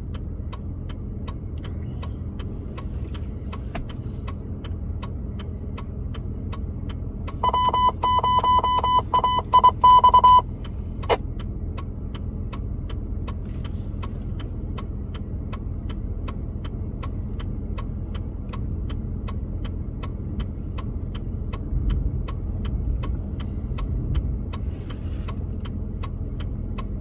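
Steady low rumble of a car heard from inside the cabin. About a third of the way in, a rapid electronic beeping sounds for about three seconds, followed by a single short click.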